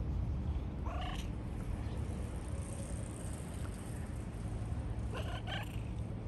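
Brown tabby cat calling while being stroked: one short meow about a second in, then a quick run of short chirping calls near the end, over a steady low rumble.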